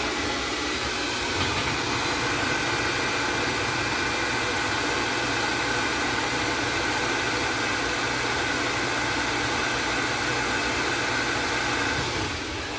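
Hand-held hair dryer running steadily, a loud even rush of air with a faint whine, fading near the end. It is heating a clock power cord's vinyl insulation so the cord softens and settles into its plug.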